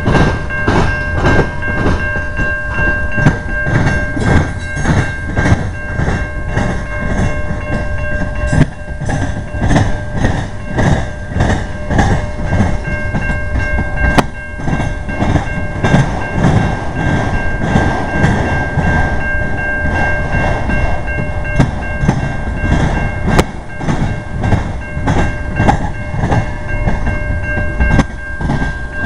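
CN freight train cars rolling past: a steady run of wheel clacks over rail joints and the junction's crossing diamond, with a steady high-pitched ringing tone throughout.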